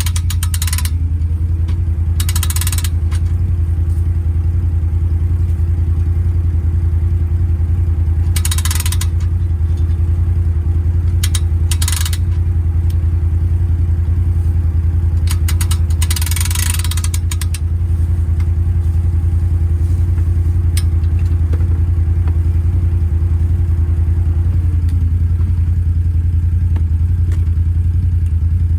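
ATV engine running steadily under load while skidding a log, with a whine that rises about a second in, holds, and drops near the end. A few short rattles break through along the way.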